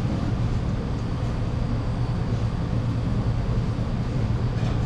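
Steady low machinery drone of a commercial kitchen, an even rumbling hum with no break or change.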